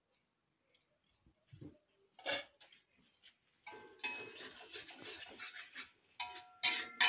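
Metal spatula stirring and scraping a spice paste being sautéed in oil in a wok, then knocking against the wok several times near the end, about two strikes a second, each leaving the wok ringing. A single sharp clank comes about two seconds in.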